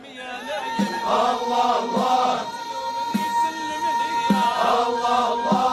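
Music: male voices chanting together over a drum struck about once a second, with one long held note through the middle.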